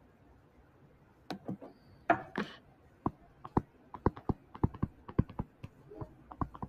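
Stylus tapping and clicking on a tablet screen while numbers are handwritten: a run of irregular clicks beginning about a second in.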